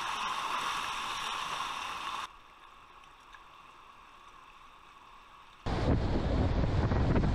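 Rushing whitewater heard through an action camera's microphone. A steady hiss of rapids drops abruptly to a faint rush about two seconds in, then comes back abruptly much louder, with heavy wind buffeting on the microphone.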